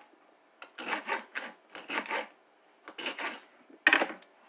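Chef's knife chopping celery on a cutting board: several short scraping strokes against the board, then one louder, sharper knock on the board near the end.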